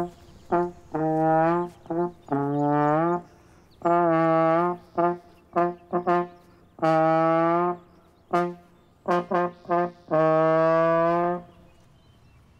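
A slide trombone played solo: a short tune of quick detached notes mixed with longer held ones, some of them sliding up in pitch. It stops about a second before the end.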